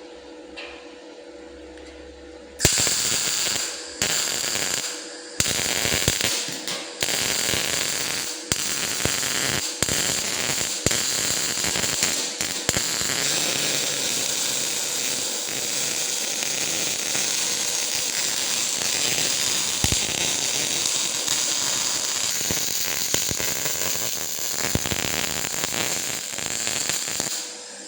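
Semi-automatic MIG wire-feed welder arc crackling. It strikes in three short bursts a few seconds in, then runs as one long continuous weld until just before the end.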